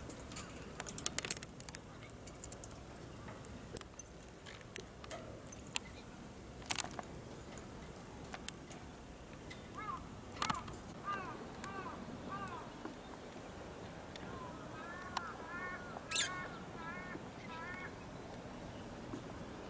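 Faint bird calls: a few short arched calls about ten seconds in, then a quicker run of them near the end, with scattered sharp clicks earlier on.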